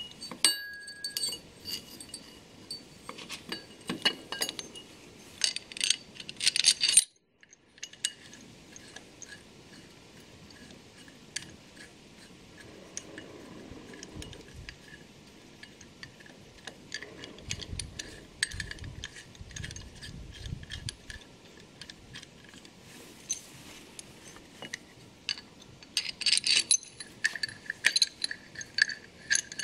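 Metal parts of a shaper gear cutter clinking and knocking together as they are handled and fitted: steel plates and fittings striking each other and the cast housing, with short ringing clinks. The clinks come in flurries near the start and again near the end, with sparser knocks in between.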